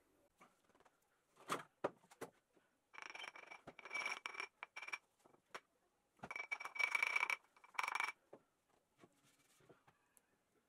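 Scattered clicks and knocks, with two short runs of a small power tool a few seconds apart, each lasting about a second and a half to two seconds.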